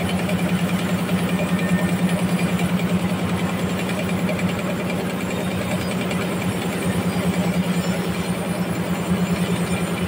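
Large band sawmill running and sawing through a big trembesi (rain tree) log: a steady low hum with a fast, even pulsing beat that smooths out briefly around the middle.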